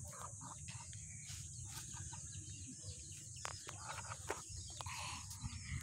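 Faint calls of backyard poultry, scattered and soft, with short clicks of phone handling and a steady high hiss underneath.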